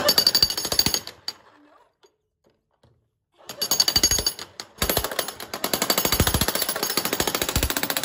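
Hilti TE 3000-AVR electric jackhammer breaking concrete with rapid, continuous hammer blows. It stops about a second in, starts again after a couple of seconds, breaks off briefly, then runs steadily.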